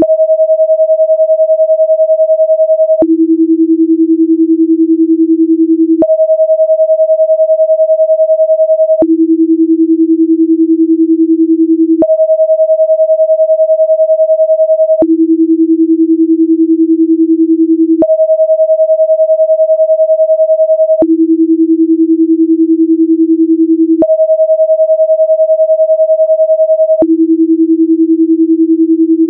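Steady pure sine tones that switch every three seconds between a low pitch and one about twice as high, with a faint click at each switch. They are binaural-beat tones for a frequency following response, with the left and right channels set 10 Hz apart to entrain a 10 Hz alpha rhythm.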